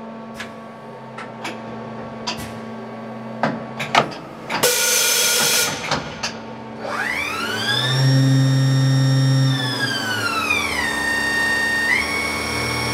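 Several sharp clicks and a hiss lasting about a second, then the spindle of a TRAUB CSK300 vertical machining center spins up with a rising whine, holds its speed, winds down to a steady lower pitch and steps up again near the end.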